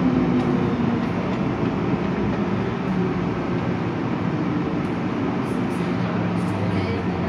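MTR M-Train heard from inside the carriage, slowing to a stop at a station: steady running noise with the traction motors' whine falling slowly in pitch near the start.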